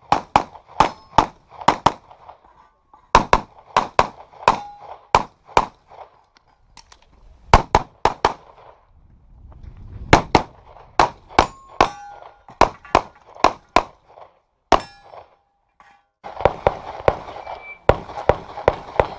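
Handgun shots fired in quick strings with short pauses between them, in a practical pistol stage. After some hits there is a brief metallic ring, as steel targets are struck.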